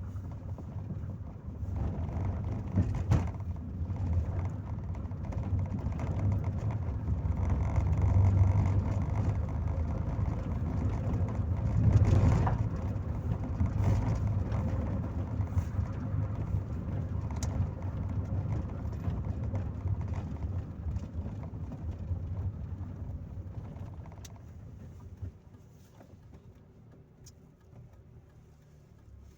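Inside a Chevrolet Corsa Maxx on the move: a steady low engine and road rumble, swelling louder a few times in the first half, then dropping to a much quieter hum in the last few seconds.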